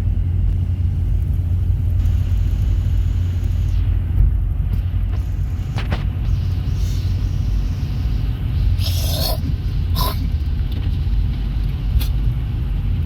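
Steady low rumble of a vehicle driving, heard from inside the cab, with a few brief clicks and a short rustle about nine seconds in.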